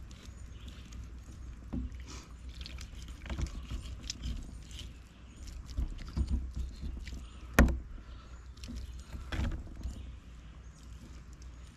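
Fillet knife cutting through a catfish on a wooden board, with scattered taps and knocks of the blade and fish against the wood. One sharp knock about seven and a half seconds in is the loudest, with another a couple of seconds later.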